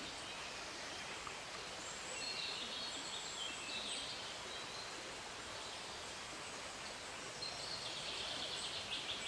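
Steady outdoor background hiss with small birds singing now and then, a few short phrases a couple of seconds in and again near the end.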